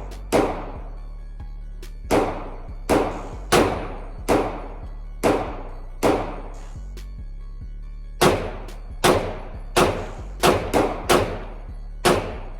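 Glock pistol in an MCK micro conversion kit firing single shots at an uneven pace, about fourteen in all. Each is a sharp crack with a short ringing tail, and three come in quick succession about two-thirds of the way through.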